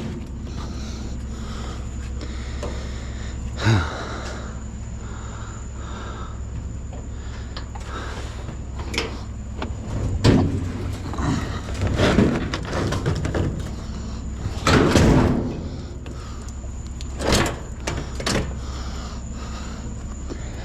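A series of sudden clunks and knocks, the longest cluster about three-quarters of the way in, over a steady low engine hum. These fit scrap being handled and loaded onto a truck.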